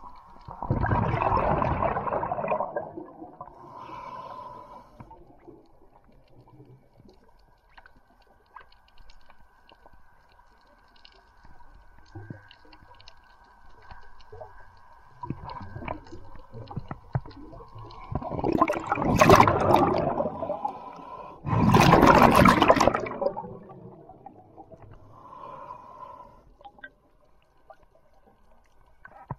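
Underwater sound on a diver's camera: loud rushing water noise in bursts of about two seconds, once near the start and twice about two-thirds of the way in, over a faint steady high hum.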